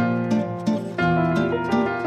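Background music: a plucked-string melody, harp-like, with notes changing several times a second.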